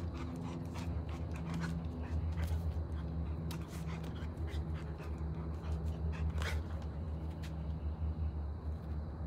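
A Rottweiler breathing and moving about close to the microphone, with scattered light clicks and a stronger one about six and a half seconds in, over a steady low rumble.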